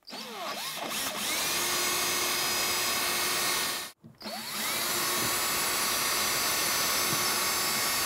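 Cordless drill pre-drilling pilot holes for mounting screws in a wall. It makes two runs of about four seconds each, with a short stop between them. The motor whirs up in pitch at the start of each run, then runs steadily.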